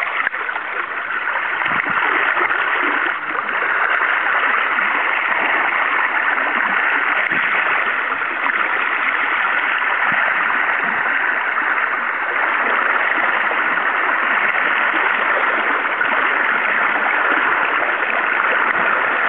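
Steady rushing of river current flowing around a wading angler's legs.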